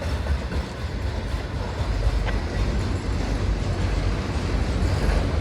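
Freight train rolling past with a steady low rumble of diesel locomotives and rolling cars.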